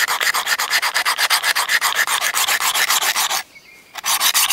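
Coarse diamond plate of a Work Sharp field sharpener scraped in quick, rapid back-and-forth strokes along a parang's steel edge, re-grinding a dulled edge to raise a burr. The strokes stop for about half a second about three and a half seconds in, then resume.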